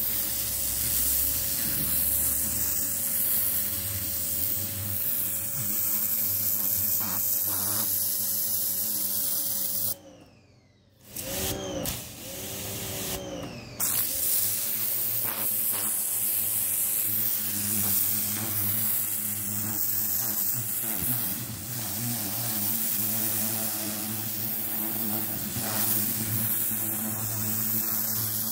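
Parkside PHD 170 D2 electric pressure washer running, its jet hissing onto stone paving. The motor and pump hum steadily beneath the spray. About ten seconds in the spray cuts out, and it starts again about four seconds later.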